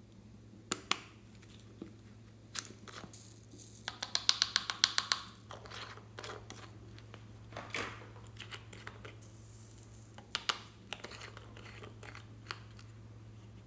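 Small plastic shell-shaped bottles being handled and their screw caps opened: scattered sharp plastic clicks and taps, with a quick run of about ten clicks around four seconds in. A steady low hum runs underneath.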